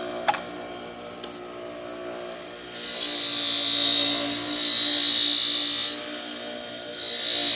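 Bench buffing wheel motor running steadily while a knife blade is pressed against the compound-charged wheel, giving a loud high hissing grind for about three seconds, then again from near the end. A small click comes just after the start.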